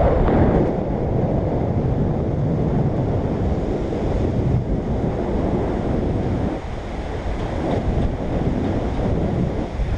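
Wind buffeting the microphone of a pole-mounted action camera in flight under a tandem paraglider, a steady low rumble of rushing air.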